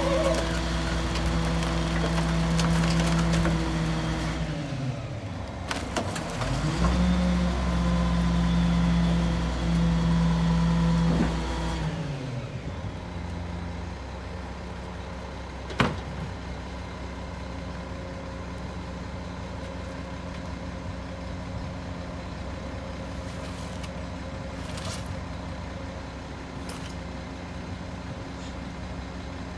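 A Mack MR garbage truck's diesel engine held at raised revs to drive the Leach rear-loader's packer hydraulics. The revs dip and climb again about five seconds in, then drop to a steady idle about twelve seconds in. Over the idle comes a single sharp knock around sixteen seconds in.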